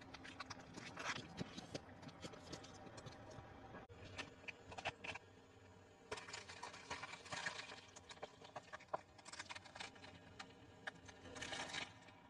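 A car tyre rolling slowly over and crushing objects on tarmac: jelly sweets, then eggs in a carton. The sound comes as several faint bursts of crackling and crunching with short pauses between.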